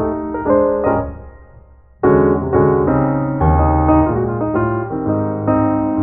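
Background music: piano or electric-piano chords that fade out about a second in, then start again with a new phrase two seconds in.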